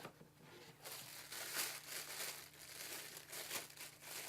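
Packaging crinkling and rustling in irregular bursts as a camera lens case is taken out of its box, over a faint steady low hum.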